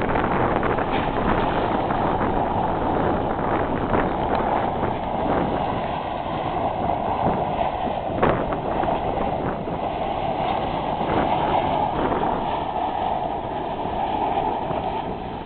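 Lincoln Navigator SUV doing donuts in loose dirt: the engine running hard and the tyres spinning, under heavy wind noise on the microphone. A single sharp knock about eight seconds in.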